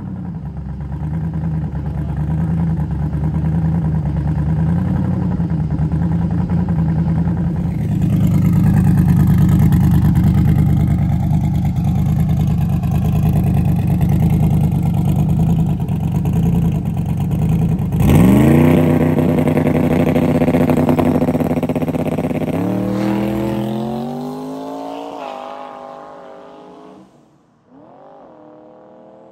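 Twin-turbo Camaro drag car's engine running loudly at the line, getting louder about eight seconds in. About eighteen seconds in it launches: the revs climb fast, drop at the hard 1-2 shift and climb again as the car pulls away and fades into the distance on a full pass.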